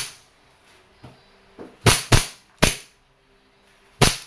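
KWC 1911 Tactical CO2-powered blowback BB pistol firing 4.5 mm steel BBs: five sharp shots in an uneven string, two of them close together just before the middle, with a couple of faint ticks between.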